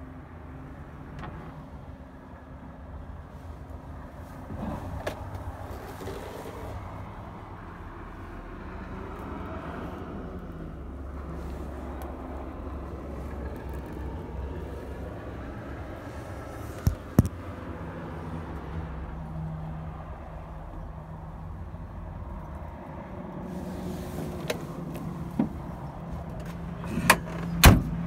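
Steady low vehicle hum with scattered knocks and clicks from handling in a truck cab. Near the end comes a cluster of loud sharp clunks, the cab door of a KAMAZ 53605 tipper truck being worked and shut.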